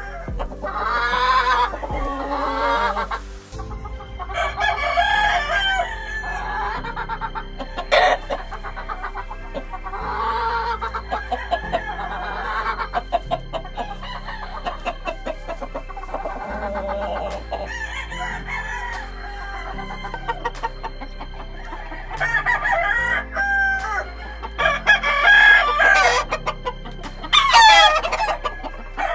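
Kelso gamefowl roosters crowing and hens clucking, one call after another, with the loudest crows near the end.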